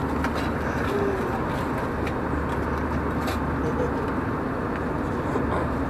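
Steady cabin noise of an Airbus A320 airliner in flight, with a low hum underneath. A few faint clicks come from a drinks can and a foil meal tray being handled on the seat-back tray table.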